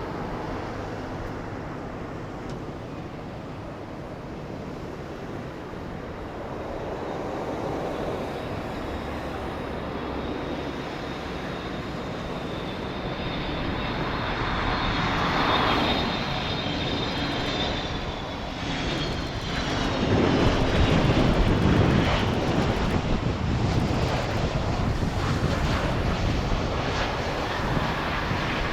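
Jet engines of a large military aircraft, growing louder, with a high whine that slides down in pitch about halfway through and the loudest deep roar about 20 seconds in.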